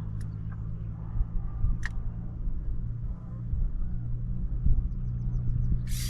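A boat motor running steadily at low speed, a low even hum, with a few light clicks over it and a short rush of hiss near the end.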